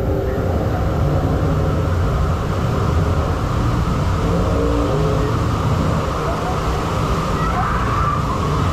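Steady rush of water swirling around a bowl water slide and pouring down its central drain.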